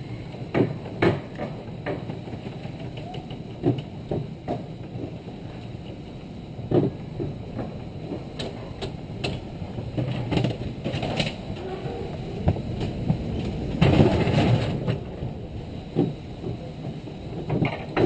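Alpine-coaster bobsled sled rolling fast down its steel rails: a steady low rumble broken by frequent clacks and knocks from the track, louder for about a second some three-quarters of the way through.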